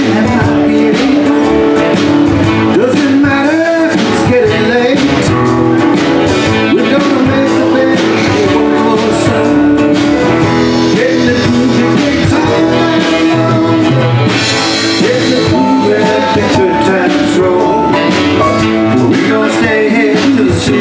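Live band playing a loud blues-rock number, with acoustic and electric guitars, saxophone, keyboard and drums.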